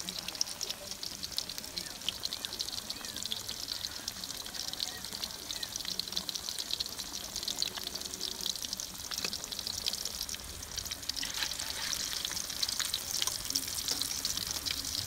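Fish-paste patties deep-frying in hot oil in a steel wok: a steady, dense crackling sizzle that grows louder near the end.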